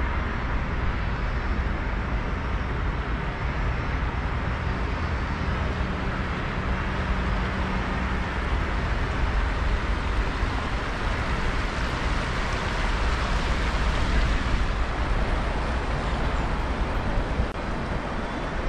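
Steady city road traffic: a continuous low rumble of engines and tyres, swelling for a few seconds past the middle as a vehicle passes.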